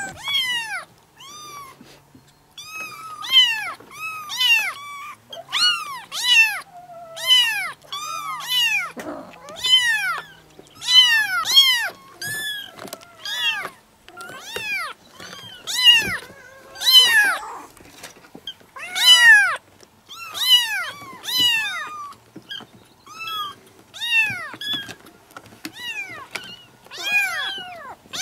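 Kittens meowing over and over: short, high-pitched meows, each rising and then falling in pitch, about one or two a second, some overlapping.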